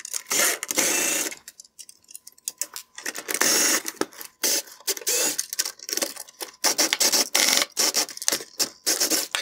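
Screwdriver backing T20 Torx screws out of a plastic headlight bezel: short bursts of rapid clicking with pauses between.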